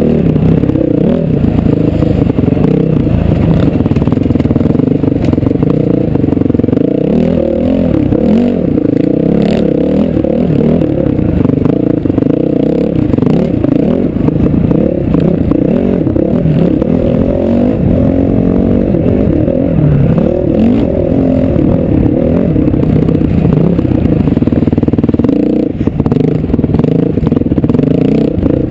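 Off-road dirt bike engine running hard, its note rising and falling constantly as the rider works the throttle over rough ground, heard from the rider's helmet. The engine briefly backs off about 26 seconds in.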